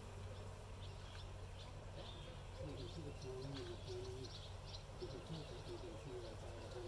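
Birds calling: many short high chirps throughout, and from about two and a half seconds in a low call of short stepped notes, repeated for about three seconds.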